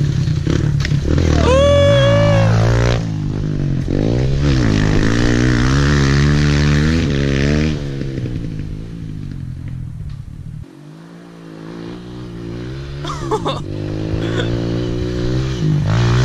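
Kawasaki KLX pit bike's small four-stroke single-cylinder engine revving up and down as it is ridden. The sound drops away suddenly about ten and a half seconds in, then builds again as the bike comes closer.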